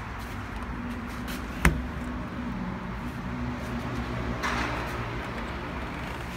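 A Mercedes-Benz C-Class W204 car door shutting with a single sharp thud a little under two seconds in, over a steady low hum, followed by a brief rustle a few seconds later as someone settles into the seat.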